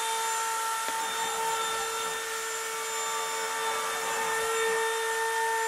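CNC router running a carving program: a steady high whine from the spindle over a rushing hiss.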